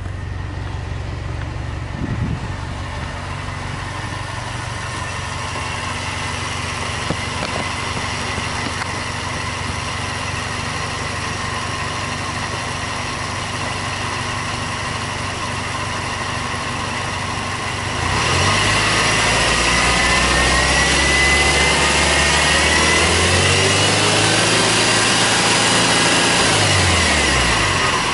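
Subaru Impreza WRX STI's turbocharged flat-four boxer engine idling steadily, then, about two-thirds of the way through, revved in neutral several times, its pitch rising and falling with each blip.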